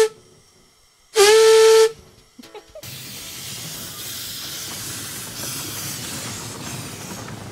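Narrow-gauge steam locomotive's whistle: the end of one blast, then a second short blast about a second in, its pitch sliding up quickly and then holding steady. From about three seconds in comes the steady hiss and rumble of the small steam train running along the track.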